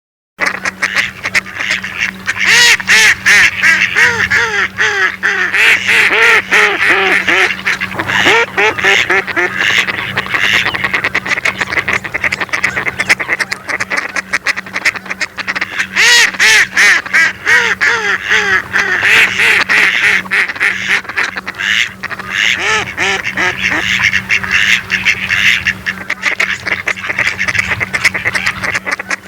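Mallard ducks quacking in a fast, continuous run of overlapping quacks, over a steady low hum.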